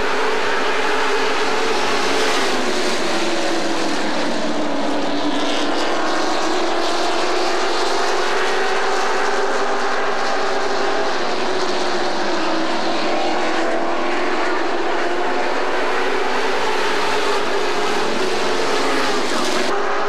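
Several race trucks' engines running together around the oval, their overlapping pitches slowly rising and falling as they go through the turns and straights.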